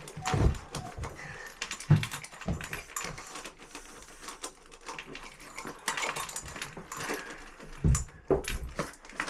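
A camera strapped to a dog's back being jostled as the dog moves about: irregular knocks, clicks and rubbing, with heavier thumps about half a second in, at two seconds and again near the end.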